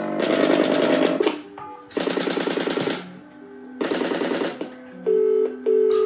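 Step-by-step telephone exchange switches clattering in three bursts of rapid clicking as calls are put through, followed near the end by two short tone bursts, the double ring of a telephone ringing tone.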